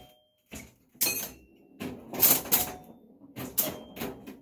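Electromechanical Super Flite pinball machine in play: several bursts of rapid mechanical clacking from its score reels and relays as the ball scores, with a few short high ringing tones among them.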